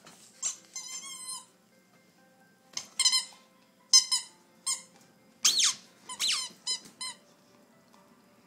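Blue squeaky ball toy squeaking as a pitbull puppy chews it: about ten short, high squeaks in irregular bursts, some warbling, and two sliding down in pitch.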